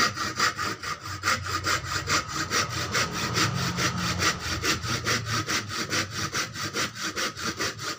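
Hand saw ripping lengthwise down the middle of a wooden handle block held in a vise, in quick, even back-and-forth strokes.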